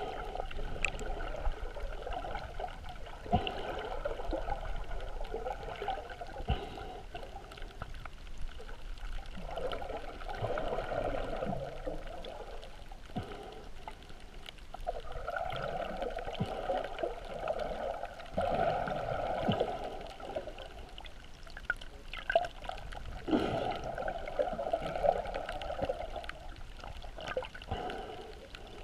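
Muffled water sounds heard through a GoPro's waterproof housing underwater: swishing, gurgling surges that swell and fade every few seconds, with scattered sharp clicks.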